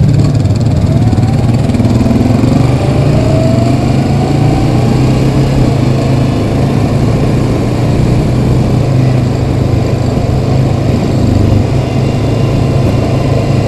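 2012 Honda Rancher 420 ATV's single-cylinder engine running steadily under way on a dirt trail, heard from the rider's seat.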